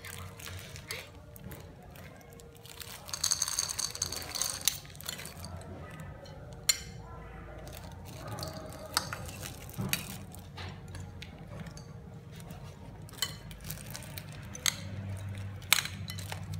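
Scattered clicks and knocks of kitchen food preparation, with a louder, noisier stretch about three to five seconds in.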